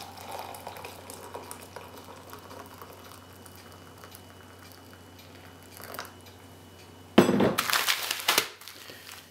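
Pre-boiled water pouring from a kettle into a glass Pyrex measuring cup, a steady pour. About seven seconds in, a foil food pouch crinkles loudly as it is grabbed and turned over.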